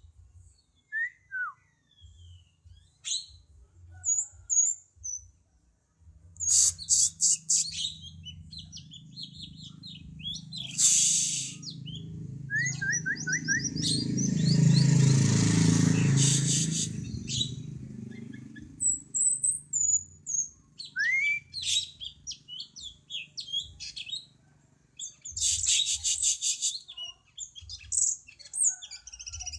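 Cungko songbird singing a varied string of sharp chirps, slurred whistles and fast rattling trills, with pauses between phrases. A low rumble swells in the middle and fades again.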